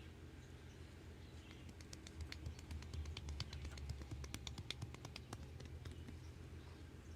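Hands working on a head during a head massage: a quick, irregular run of crisp clicks and taps that starts about two seconds in and fades out about five seconds in, over a low steady hum.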